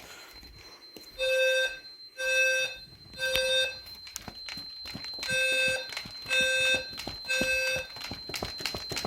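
Fire alarm speaker strobe sounding a 520 Hz alarm tone in the temporal-three pattern: three half-second beeps about a second apart, then a pause, repeating. The system is in alarm after a smoke test on a smoke detector. A steady high-pitched tone and a rapid run of clicks join about three seconds in.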